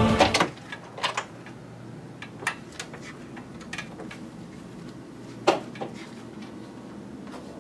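Background music cuts off at the start, leaving a quiet room with a few scattered light clicks and knocks, the sharpest about five and a half seconds in.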